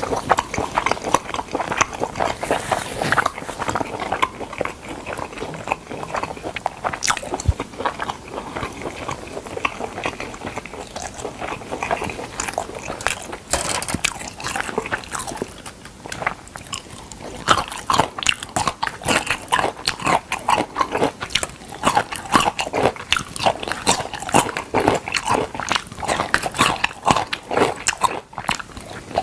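A person biting and chewing smoked chicken close to the microphone: a continual run of wet smacking and small clicking mouth sounds.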